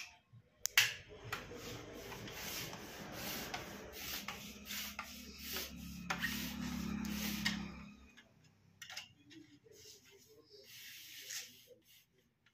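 Plastic cover of an LED tube light being slid and pressed onto its base: a continuous scraping rub with a few sharp clicks, dropping about eight seconds in to fainter, intermittent rubbing.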